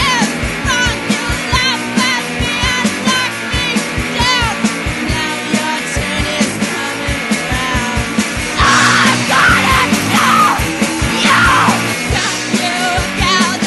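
Punk-style rock song with a steady drum beat and sung vocals, which turn to shouting for a few seconds past the middle.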